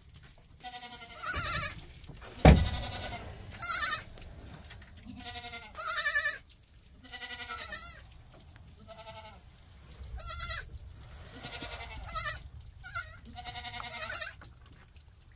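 Young goats bleating again and again, about ten short quavering calls. A single sharp thump about two and a half seconds in.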